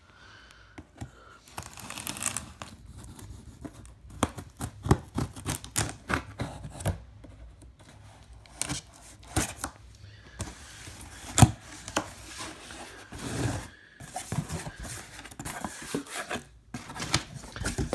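Packing tape on a cardboard shipping box being slit and torn open, a run of irregular sharp rips and scrapes with the cardboard flaps pulled apart. Near the end, crumpled brown kraft packing paper inside the box crinkles.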